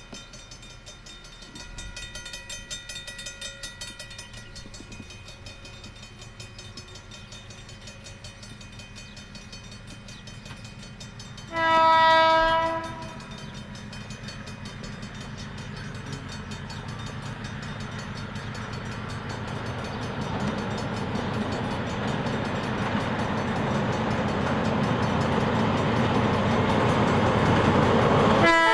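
Diesel locomotive horn sounds one blast of about a second, a third of the way in, then the rumble of the approaching passenger train grows steadily louder; a second horn blast starts right at the end.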